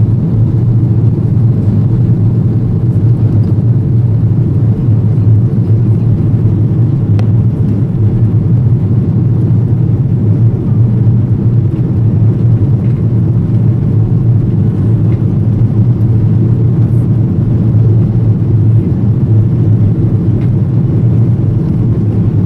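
Airbus A330-200 cabin noise during the climb after takeoff: jet engines and rushing air heard from inside the cabin as a loud, steady low rumble.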